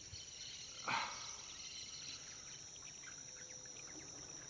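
Steady high-pitched drone of insects, with one short, louder sound about a second in.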